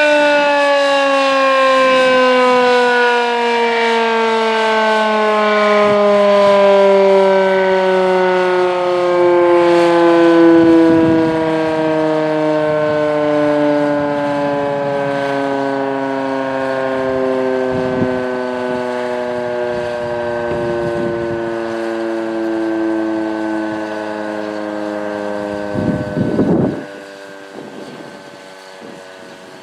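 H.O.R. Siro Drone outdoor warning siren winding down after its Alert test signal, its tones falling slowly in pitch and fading. Near the end there is a brief burst of low noise, and the level drops.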